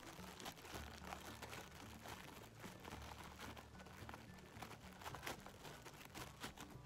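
Clear plastic packaging bag crinkling in the hands as a squishy toy is worked out of it: faint, scattered crackles.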